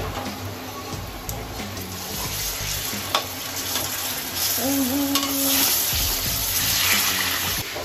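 Medu vadas deep-frying in hot oil in an aluminium kadhai, a steady sizzle while a slotted spoon stirs and turns them, with one sharp metal clink about three seconds in. The sizzling grows louder about halfway through as a fresh ball of urad dal batter goes into the oil.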